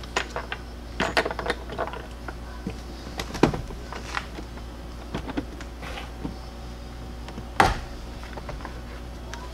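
Scattered light clicks and knocks of hard plastic interior trim and the A-pillar grab handle being handled and pulled loose. A sharper knock comes about three and a half seconds in, and the loudest one a little before the end.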